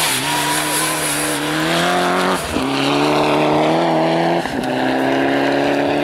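Rally car engine accelerating hard as the car drives away, its pitch climbing steadily in each gear with two quick upshifts, about two and a half and four and a half seconds in.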